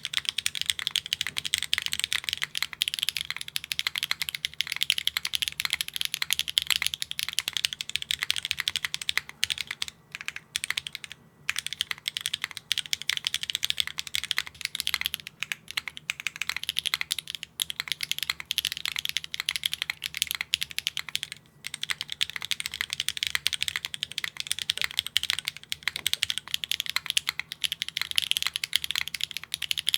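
Fast, continuous typing on a Neo65 Core Plus mechanical keyboard with HMX Yamatake light tactile switches and no foam inside: a dense run of keystrokes, with brief pauses about ten, eleven and twenty-one seconds in.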